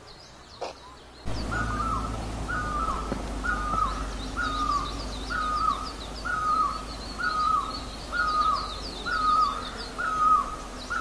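A bird repeating the same short call over and over, about one and a half calls a second, each call dropping at the end, with smaller birds chirping higher in the background. A steady low rumble runs under it from about a second in.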